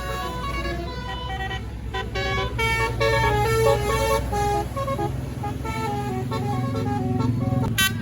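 A tour bus's Basuri telolet horn playing a quick melody of changing notes for about the first five seconds. The bus's engine drone grows louder through the second half.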